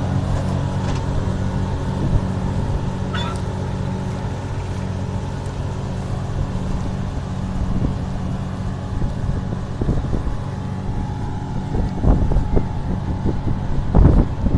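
Engine of a wheat-harvesting machine running steadily, with a few louder knocks near the end.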